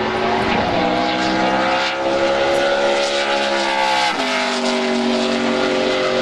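NASCAR stock car's V8 engine running at speed, its pitch climbing steadily and then dropping sharply about four seconds in as the car passes close by, continuing lower as it pulls away.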